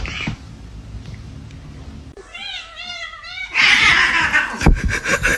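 Cat meowing: one long, wavering meow about two seconds in, followed by a louder, harsher noisy stretch.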